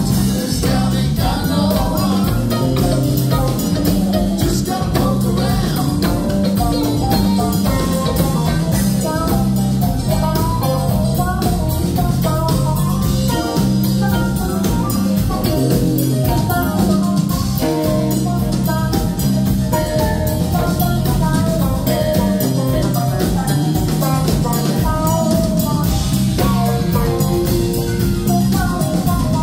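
Live rock band playing loudly: electric guitars, keyboards and drum kit over a steady bass line.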